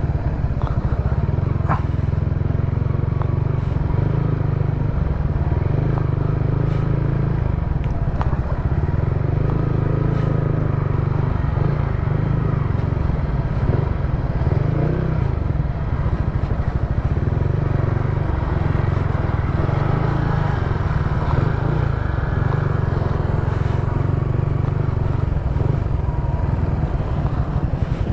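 Motorcycle engine running steadily while under way, with a strong, even low rumble and a faintly wavering engine note.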